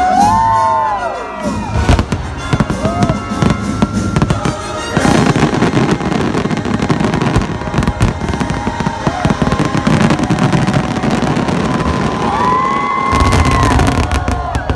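Fireworks going off: repeated bangs and crackling over music, the crackle growing dense from about five seconds in.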